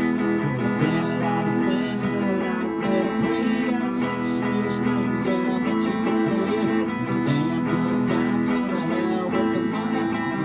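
Guitar-led band music: guitar chords strummed and picked in a steady song.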